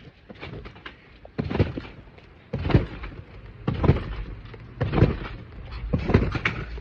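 Trampoline bouncing: a series of heavy thuds about every second and a bit, five in all, as a child jumps on the wet mat.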